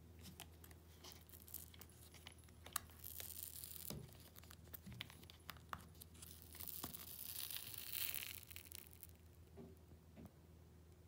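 A clear adhesive gel cushion pad being peeled off a sandal's insole: faint sticky tearing and crackling, with a few small clicks at first and a longer peel about two thirds of the way through.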